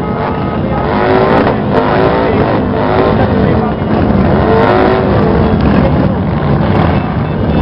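Engines of a slow-moving group of motorcycles and a quad bike running together, with revs rising and falling several times.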